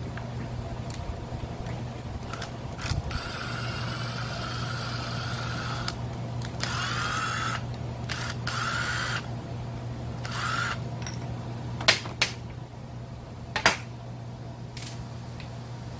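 Cordless drill with a socket spinning bolts out of a brush cutter engine, in several short runs whose motor whine rises and falls. A few sharp clacks come near the end, over a steady low hum.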